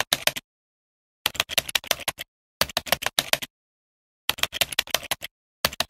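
Typing sound effect: rapid keyboard-like clicks in five short runs of about a second each, with dead silence between them.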